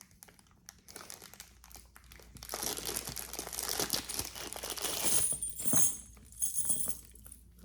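Packaging crinkling and rustling as a piece of jewelry is unwrapped, starting with a few faint rustles and growing into steady crinkling from about two seconds in until near the end.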